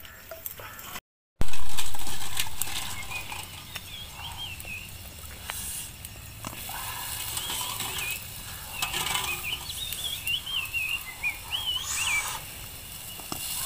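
Wild birds chirping with short warbling calls over an outdoor background, with scattered small clicks and knocks as eggs are handled and set into a pot over a campfire. A brief dropout is followed by a loud rush of noise that fades away over several seconds.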